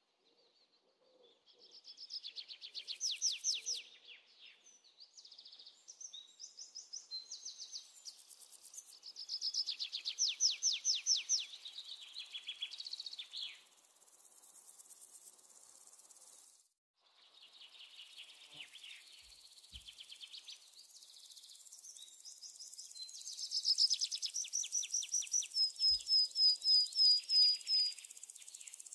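Birds singing: repeated high-pitched phrases of rapid trilled notes, a second or two each, with quick chirping near the end. The sound drops out briefly a little past halfway.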